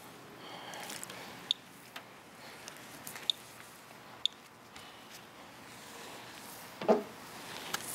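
Scattered single clicks from an SE International Geiger counter counting background radiation, coming irregularly about once every second or two. Under them, a paper towel rubs across a rain-soaked surface, with one louder wet rub about seven seconds in.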